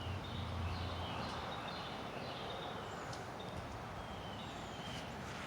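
Birds chirping: short, high, falling chirps repeated again and again over a steady outdoor background hiss.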